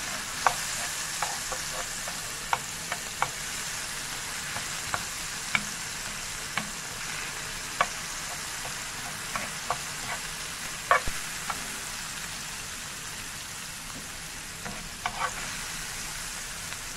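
Minced garlic frying in oil in a non-stick pan, a steady hiss, with scattered light clicks and scrapes of a metal spoon stirring it against the pan.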